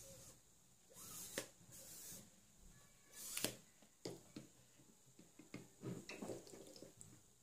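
Quiet handling of a small plastic toy water pistol as it is dipped into a plastic cup of water to fill it: a few short soft hissing rustles, then scattered light plastic clicks and knocks.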